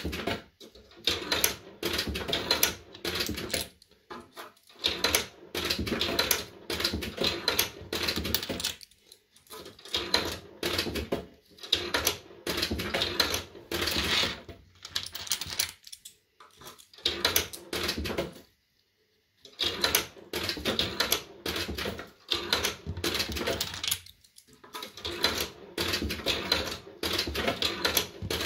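Coins fed one after another into a JPM Red Hot 6 fruit machine, each one clattering through the coin mechanism as the credit counts up. There are short clattering runs about once every second or two, with a brief pause a little past halfway.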